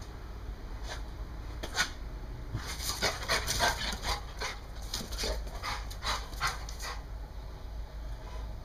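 American bulldog panting close to the microphone: a run of quick, breathy strokes, a few a second, from about two and a half seconds in until about seven seconds.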